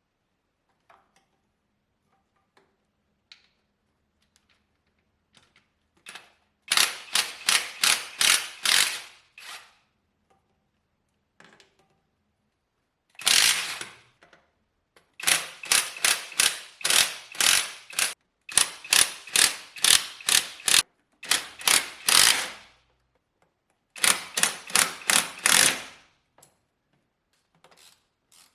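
Hand ratchet wrench clicking in about six bursts of rapid, evenly spaced clicks, a few seconds each, as it is worked on bolts during engine disassembly.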